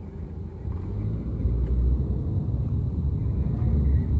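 Low road rumble of a car driving, heard from inside the cabin, growing louder about a second and a half in.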